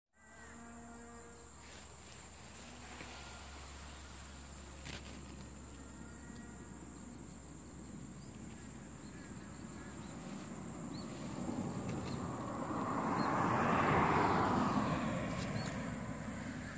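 Outdoor field ambience with a steady, high-pitched insect drone, typical of autumn crickets. About twelve seconds in, a broad rushing noise swells, peaks and fades over a few seconds.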